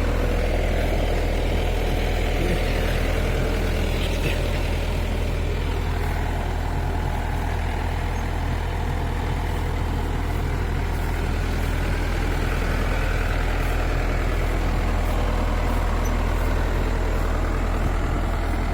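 Yanmar AW82GV combine harvester's diesel engine and machinery running steadily, with a constant deep hum.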